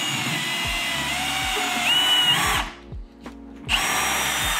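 Cordless drill boring into a plywood panel: a steady high whine over a rushing noise for about two and a half seconds, a pause of about a second, then the drill running again briefly near the end.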